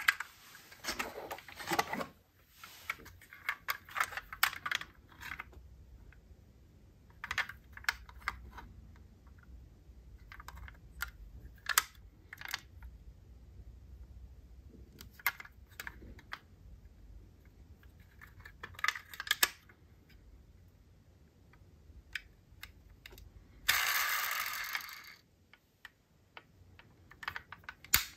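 Die-cast metal model cars being handled in a cardboard box, giving scattered small clicks and clacks as they are picked up and their opening doors are moved. Near the end comes a brief scraping rustle.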